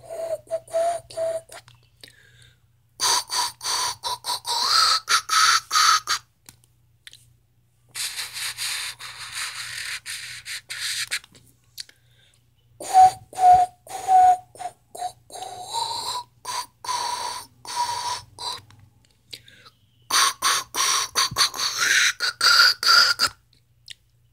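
Distorted, stuttering logo jingle played through a TV speaker. It comes in bursts of a few seconds with gaps between. In most bursts a held tone is chopped into rapid pulses and steps up in pitch. One burst is a choppy hiss.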